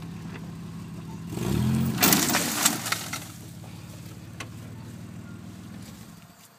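A vehicle engine running steadily, revving up about a second and a half in, with a loud rush of noise and a few knocks for about a second and a half as the old chain-link fence is pulled out of the ground. The engine sound dies away near the end.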